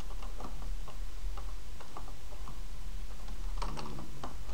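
Computer keyboard keys being typed, a run of short, irregular clicks, over a steady low electrical hum from the microphone.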